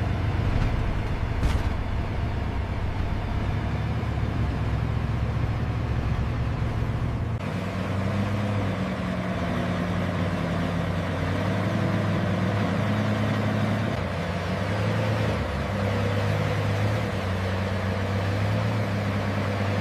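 Tank engine running with a steady low rumble. About seven and a half seconds in the sound changes abruptly to a pitched low drone that rises and falls.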